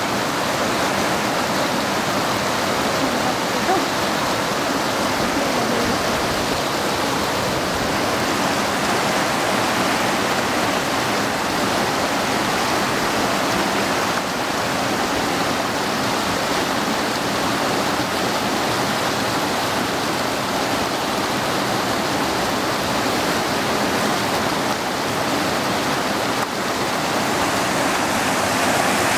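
Shallow river rushing over rocks in white-water rapids: a steady, loud roar of running water.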